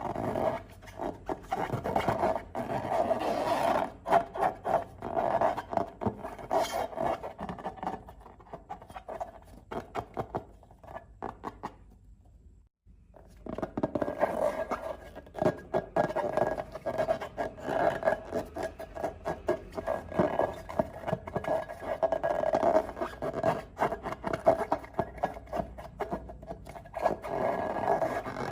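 Slime being mixed and squished: a dense run of sticky clicks and crackles, thinning out and stopping for about a second near the middle before carrying on.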